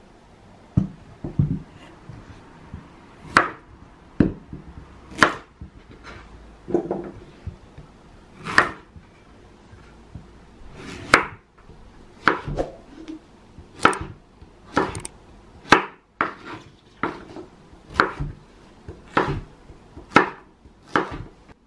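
Kitchen knife slicing through zucchini on a wooden cutting board: slow, separate cuts about one a second, each ending in a sharp knock of the blade on the board.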